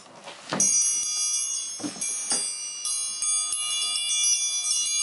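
An electronic toy playing a chiming, bell-like tune that starts about half a second in, with a few knocks from the toy being handled.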